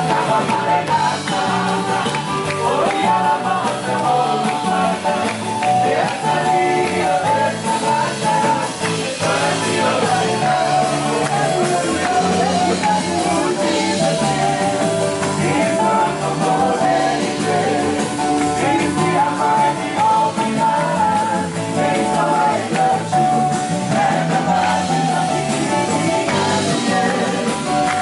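Congregation singing a worship song together with a live church band of drums and guitar.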